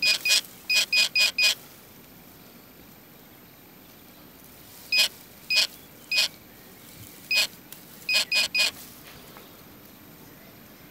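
Metal detector giving short, high, steady-pitched beeps, the target tone of metal under the coil as it sweeps the ground: a quick run of four, then single beeps spaced about half a second to a second apart, and another quick run of three near the end.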